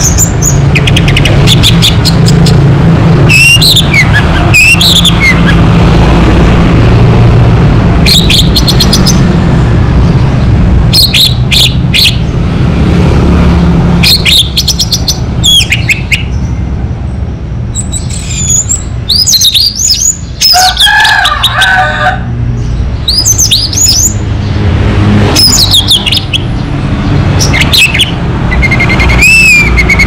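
Orange-headed thrush (anis merah) singing: short phrases of quick, swooping whistled notes every second or two, over a steady low rumble.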